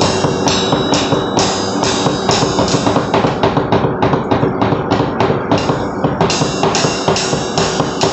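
A drum kit played in a steady beat, sticks striking Zildjian cymbals about two to three times a second, with drum and bass-drum hits underneath.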